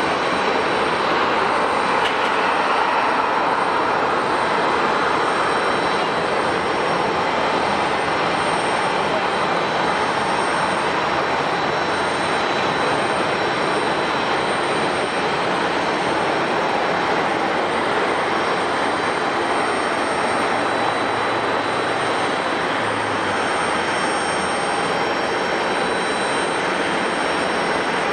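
Jet airliner engines running, a steady rushing noise with a faint high whine, a little louder in the first few seconds and then easing slightly.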